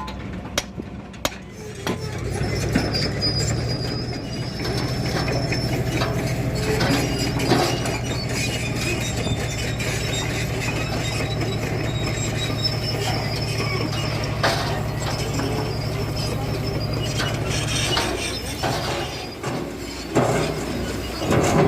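Heavy diesel machinery engine running steadily, with metal clanking and rattling over it. A few sharp knocks come in the first couple of seconds and again near the end.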